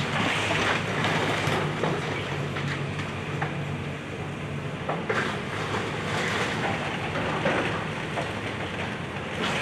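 Excavator engine running steadily during a house demolition, with scattered sharp cracks and knocks from the machine working.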